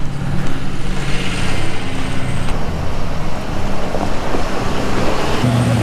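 Vehicle engine running steadily at low speed, its low hum growing stronger near the end.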